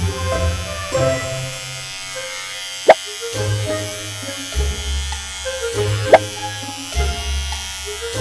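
Electric hair clipper buzzing steadily over background music, with two sharp short pops, about three seconds apart.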